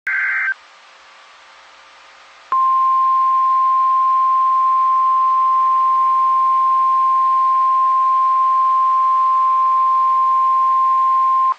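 NOAA Weather Radio alert: the tail of a short buzzy SAME data burst, then a moment of radio hiss, then the steady 1050 Hz warning alarm tone held for about nine seconds. The tone signals that a warning, here a severe thunderstorm warning, is about to be read.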